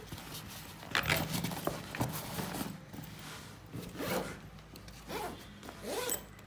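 The zipper of a fabric backpack being pulled open and then zipped shut again, in several short rasping pulls.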